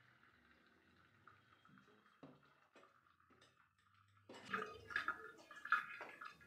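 Boiled rice draining in a perforated steel strainer: starchy water trickling and dripping faintly, then louder splashing with a few sharp clinks of steel from about four seconds in.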